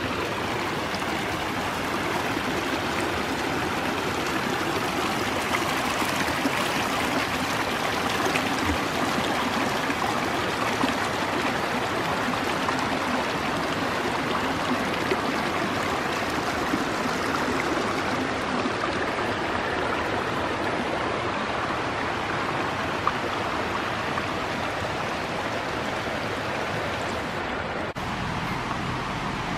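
Small mountain creek flowing over rocks: a steady, unbroken rush of running water.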